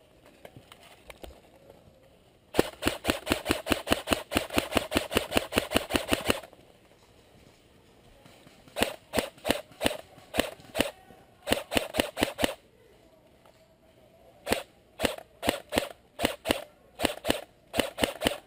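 Airsoft gun firing rapid sharp shots: a continuous string of about twenty shots lasting nearly four seconds, then short strings of two to four shots in quick succession.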